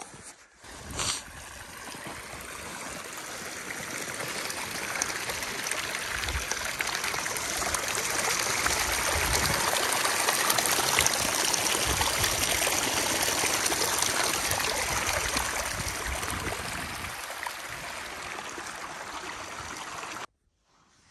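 Rushing water of a stream, a steady hiss that swells over several seconds, eases off, and then cuts off suddenly near the end.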